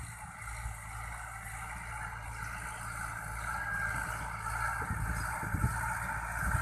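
A motor engine running steadily, with low rumbling thumps about five seconds in.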